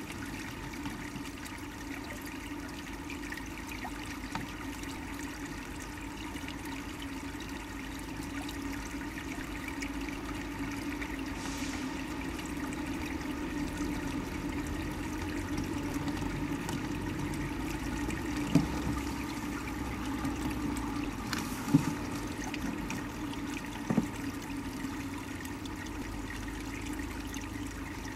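Steady rush of stream water, heard from a camera submerged in the creek. Three short knocks come in the second half, louder than the water.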